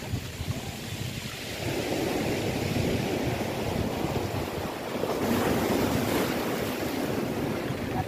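Sea waves breaking and washing up a shingle beach, swelling once about a second and a half in and again, louder, around five seconds in. Wind buffets the microphone throughout.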